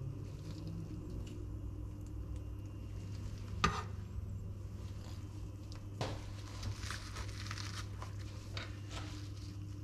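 Kitchen handling sounds over a steady low hum: a single sharp knock about a third of the way in, then from about halfway a run of light crinkling and clicking as metal tongs pick fried potatoes out of a paper-towel-lined bowl.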